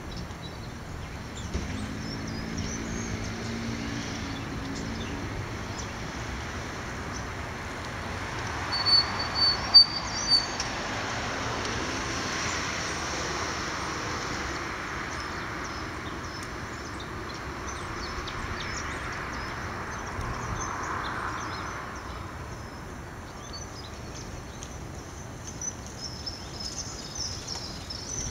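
Outdoor ambience: a distant rumble that swells and fades over about fifteen seconds, with small birds chirping now and then and a few sharp knocks about nine to ten seconds in.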